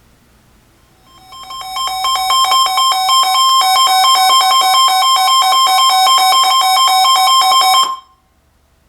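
Weather radio's warning alert alarm: a loud electronic tone pulsing rapidly. It starts about a second in, swells to full loudness over the next second and cuts off abruptly. It signals that a warning, here a severe thunderstorm warning, is being broadcast.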